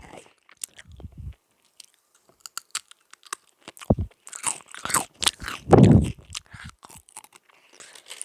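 Close-miked mouth sounds of someone biting and chewing crunchy Sunbites crisps: irregular crunches and crackles, loudest and busiest a little past the middle.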